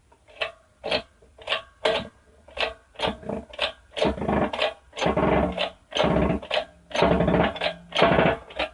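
Background music with a rhythmic beat, building up and filling out from about halfway in.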